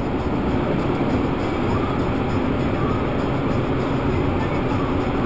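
Kärcher automatic car wash's drying blower running with a steady, even rumble as its top nozzle bar passes down over the windshield, heard from inside the car.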